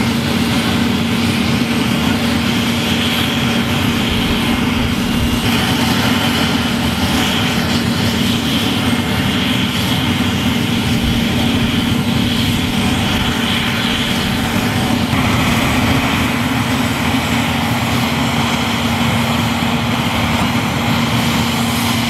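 Loud, steady drone of a Navy LCAC hovercraft's gas turbines and ducted propellers running, with a strong constant hum under a higher whine. The mix shifts slightly about five and fifteen seconds in.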